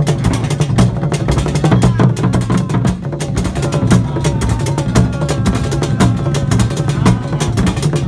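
Fontomfrom, the large Asante royal drums, beaten with curved sticks in a fast, dense rhythm with heavy low strokes, the ensemble playing without a break.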